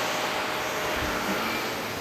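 Vacuum cleaner running steadily, a continuous rush of motor and airflow noise.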